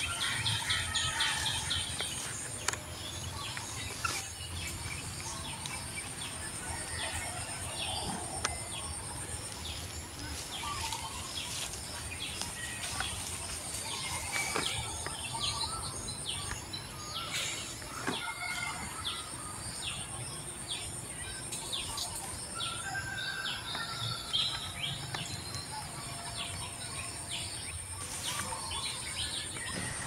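Forest ambience: birds chirping and calling in short, scattered notes throughout, over a thin, high, steady insect buzz that breaks off briefly every five or six seconds.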